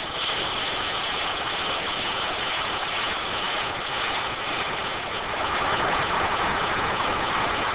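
Tipper lorry with its trailer raised, the diesel engine running while a load of gravel pours out onto a stockpile: a steady, even rushing noise that holds at one level throughout.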